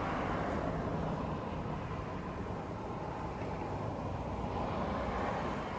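Wind blowing across the microphone, a steady low noise without any distinct tone.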